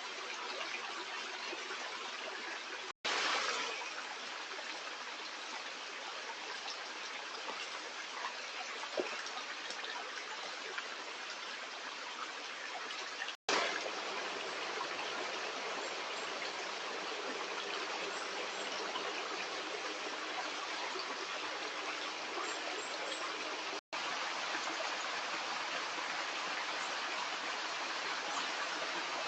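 Stream running steadily, a continuous rush and trickle of water. The sound drops out for an instant three times, each time coming back slightly louder for a moment.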